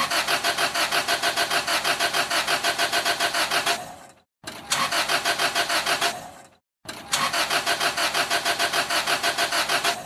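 Car engine cranking on its starter motor without catching, three attempts in a row. Each attempt is a fast, even chugging of about five beats a second that fades out as the key is let go. The engine fails to start.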